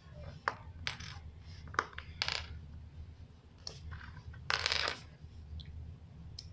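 Plastic Lego pieces clicking and clattering as they are handled: a scattering of sharp separate clicks, with a longer rattle about four and a half seconds in.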